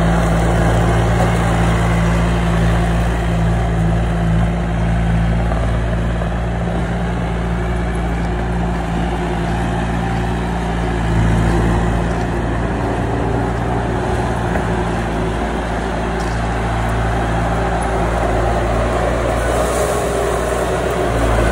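An engine running steadily, loud, with a slight change in its note about halfway through.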